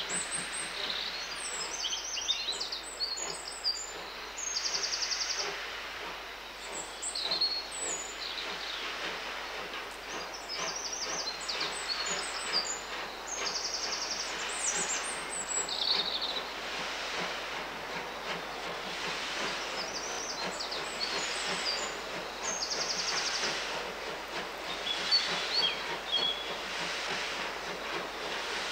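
Double-headed steam train working hard as it approaches from a distance, its exhaust a steady, noisy chuffing. Birds sing and chirp over it, with short trills.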